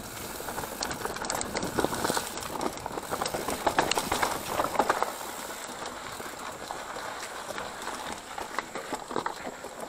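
Mountain bike riding down a dirt singletrack: tyres on dirt with the bike clattering over rough ground. There are many short knocks in the first half, then a steadier, quieter rolling noise from about five seconds in.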